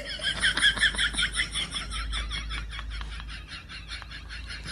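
An animal making a rapid run of short, high-pitched chirps, about six a second, fading gradually, over a low steady hum.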